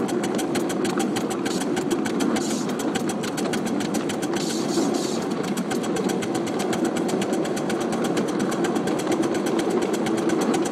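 Miniature 1½-inch-scale live-steam locomotive running along 7½-inch-gauge track: a fast, even beat of exhaust chuffs over a steady rumble, with short spells of hiss.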